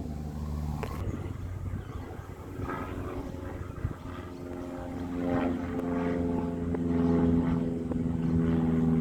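A propeller plane's engine droning steadily as it flies over, growing louder over the last few seconds.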